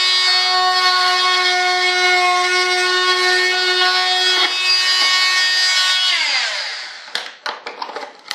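Small high-speed power tool running steadily while cutting into a composite airframe. It is switched off about six seconds in and spins down with falling pitch, followed by a few sharp clicks and knocks.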